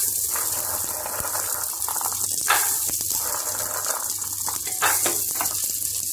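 Oil sizzling steadily in a pressure cooker as fresh green peas are tipped in onto frying potato pieces and curry leaves, with a couple of sharper rattles of peas against the pan.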